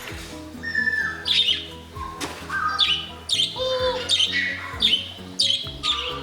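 Pet budgerigars chirping and squawking in short, sharp calls, one or two a second, over background music.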